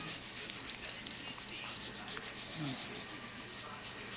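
A hand rubbing a Cairn terrier's belly fur: quick, repeated scratchy brushing strokes.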